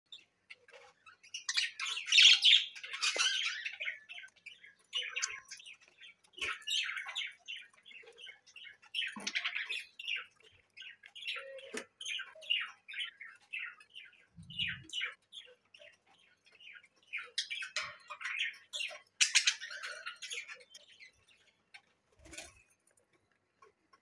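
Budgerigars chirping and chattering in quick runs of short, high notes. The loudest squawks come about two seconds in and again near the end. A few faint clicks and one soft low thud come in between.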